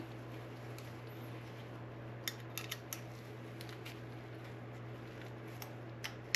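A few small, sharp clicks and taps of hard parts being handled, as the light/laser unit is fitted onto the carbon fiber handguard's slots, over a steady low hum.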